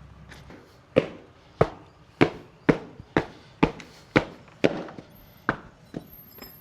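A run of about ten sharp knocks, roughly two a second, each with a short ringing tail.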